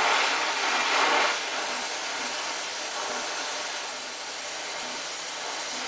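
Harris oxy-acetylene torch flame hissing steadily as it plays on a steel plate. The hiss drops a little in level after about a second and a half, then holds steady.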